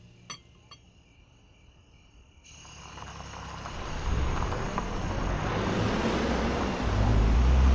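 Two light clinks of a porcelain coffee cup set down on its saucer near the start. About two and a half seconds in, an even outdoor noise rises with a low rumble of a heavy military truck's engine, which swells about four seconds in and again near the end.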